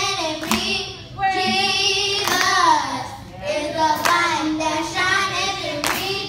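Children's choir singing, with four sharp claps about every two seconds keeping the beat.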